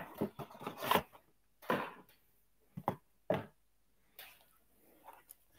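Foil-wrapped trading-card packs being handled on a table: a few short rustles and light taps, spaced out, with quiet between them.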